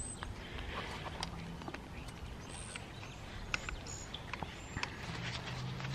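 Faint, scattered clicks and light scrapes of a screwdriver tip on the aluminium magneto housing of an old chainsaw, with a few short, faint high chirps in the background.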